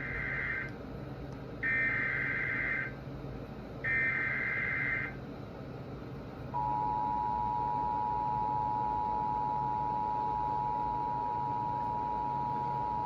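Emergency Alert System activation: three short bursts of SAME digital header data about a second apart, then the steady two-tone EAS attention signal, which starts about six and a half seconds in. It announces a severe thunderstorm warning.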